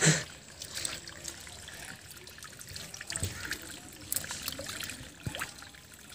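Pond water trickling and dripping softly, with a few light splashes and drips.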